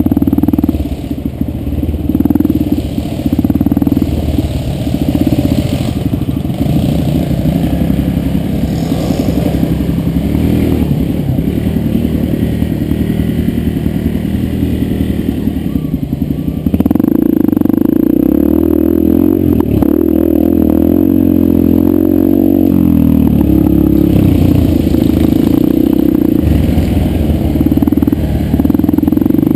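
Yamaha 125 dirt bike engine running while ridden along a dirt trail, the revs rising and falling with the throttle. It gets louder about halfway through, with the engine climbing and dropping in pitch over the following seconds.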